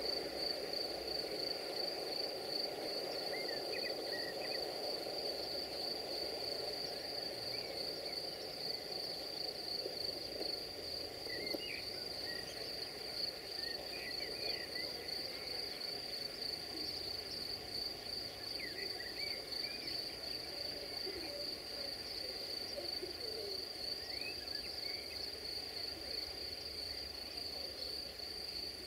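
Crickets trilling in a steady, high, finely pulsing chorus, with short bird chirps now and then over a faint low background hum.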